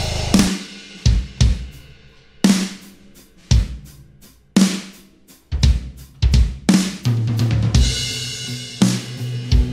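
Background rock music: a dense, loud passage cuts off about half a second in, leaving separate drum hits (kick, snare and cymbal) with gaps between them, and a steady bass note joins about seven seconds in.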